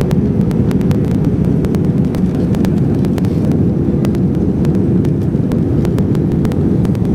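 Steady low rushing cabin noise of a passenger airliner in flight, with a faint steady hum joining about halfway through and scattered light clicks.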